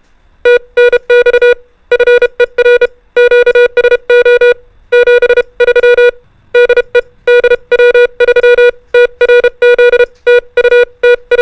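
Morse code (CW) practice tone sending numerals. A single-pitch beep is keyed on and off in dots and dashes, in runs of about a second with short pauses between the characters.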